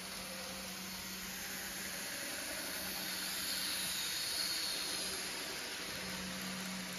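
Z-scale model freight train running on its track, a soft hissing rush of motor and wheels that swells a little as the train passes closest, about halfway through.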